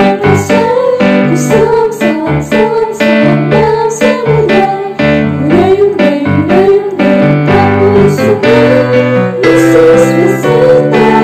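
A worship song for children: a keyboard plays chords while a voice sings the melody.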